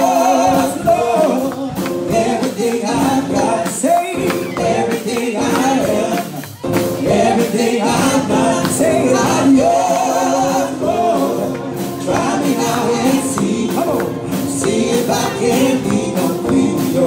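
Live gospel worship song: a choir and congregation singing with a tambourine shaking along, with a short break in the singing about six seconds in.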